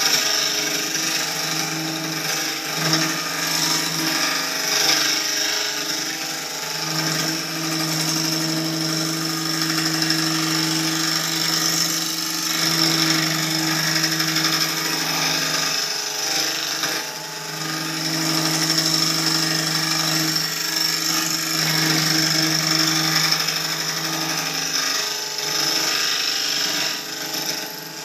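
Wood lathe spinning a maple crotch blank while a turning tool cuts into it: a steady hiss of wood being cut, over a low hum that comes and goes with the cut.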